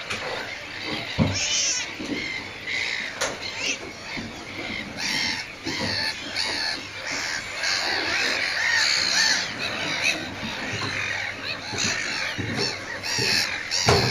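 A racket of nesting black-headed gulls: many short calls overlapping without a break. A low thump about a second in.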